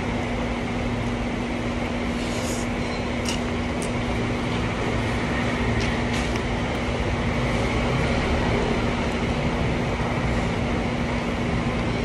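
A steady mechanical hum with a constant low tone, with a few faint clicks and smacks of hand-eating and chewing.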